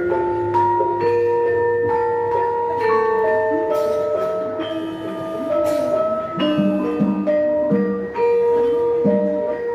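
Javanese gamelan ensemble playing a gending: overlapping ringing notes from struck bronze metallophones, with a few sharp strokes cutting in.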